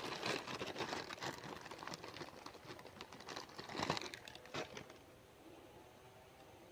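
Light rustling and small irregular clicks of close handling, crinkling like a plastic bag, which fade out after about five seconds.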